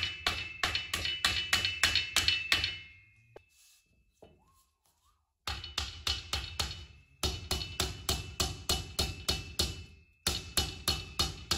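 Background music with a fast, steady drum beat. It fades out about three seconds in, goes almost silent for a couple of seconds, then cuts back in abruptly.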